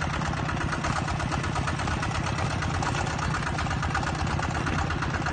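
A small engine running steadily with an even, rapid pulsing.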